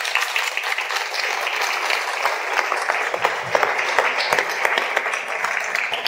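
A theatre audience applauding: many hands clapping together without a break.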